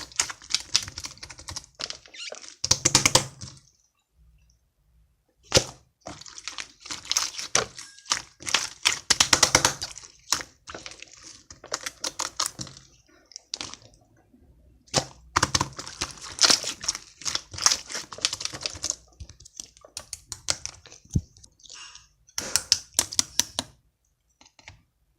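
Clear slime with air bubbles still trapped in it, squeezed and pressed by hand, giving rapid crackling clicks and pops in bursts of a few seconds, with short pauses between them.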